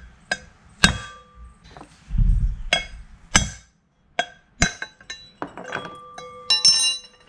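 Mini sledgehammer striking a steel bushing removal tool set inside a 200-4R transmission direct drum, a series of sharp metal-on-metal blows that drive the flush-mounted bushing out. Near the end come metallic clinks with a short held ring.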